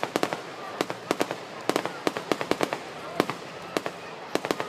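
Fireworks and firecrackers going off in rapid, irregular succession: sharp pops and cracks several times a second over a steady background hiss.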